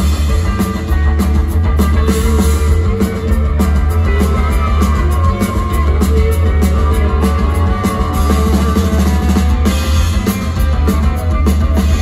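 Live psychedelic rock band playing loud and continuously: drum kit, electric guitars and heavy bass, heard through a phone's microphone in the crowd.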